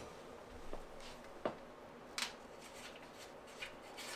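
Rubber rubbing and a few sharp clicks as a studded fat-bike tire's bead is levered onto the rim with a screwdriver.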